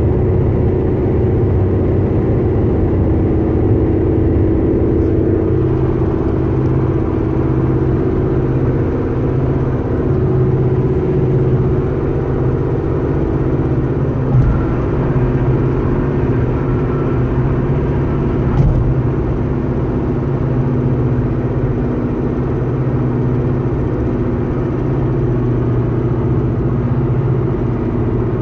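2011 Honda Civic making a steady humming noise: a low hum with a higher drone over it, holding even throughout, with a couple of faint knocks midway. The owner does not know its cause.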